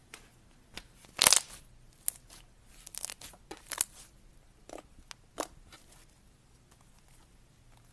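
Pink butter slime being squished and stretched by hand, giving a run of sticky crackling pops and tearing sounds, the loudest about a second in, dying down after about six seconds.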